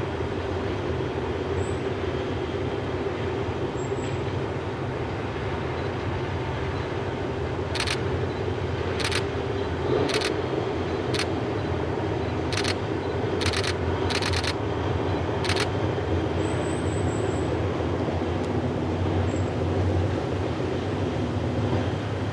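Heritage diesel train running across a river viaduct at a distance, its engines giving a steady drone. From about eight to fifteen seconds in comes a series of about eight sharp, irregular clicks from the wheels and rails.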